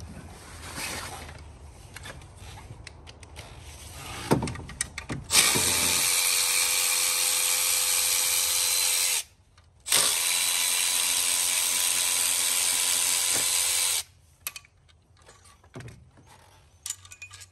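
Cordless power tool spinning out the alternator's mounting bolts, in two steady runs of about four seconds each at a fixed pitch, with a short stop between them. Lighter clicks and knocks of hand work come before and after.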